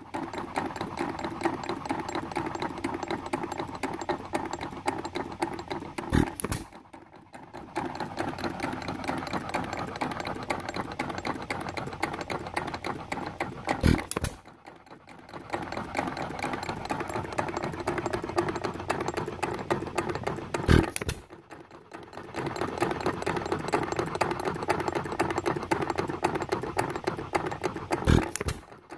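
Ingeco 1 1/2 hp hit-and-miss engine running unloaded: a sharp firing bang about every seven seconds, four in all, with a fast steady clatter of the valve gear and running parts as the flywheels coast between firings. The long gaps are the governor skipping firing strokes because the engine has no load, and it is running well.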